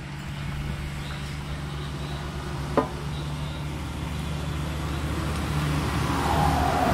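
Road traffic: a vehicle engine running and growing louder as it approaches, its pitch falling near the end as it passes. A single sharp click about three seconds in.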